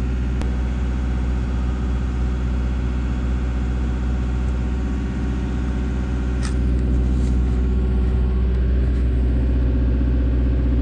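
Caterpillar 317 excavator's diesel engine running steadily, with a low hum. It gets a little louder about seven seconds in.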